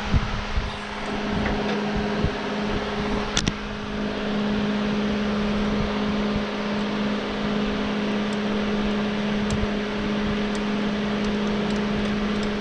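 Electric shop fan running steadily: a constant motor hum under a rush of moving air, with a sharp knock about three and a half seconds in and a few light clicks.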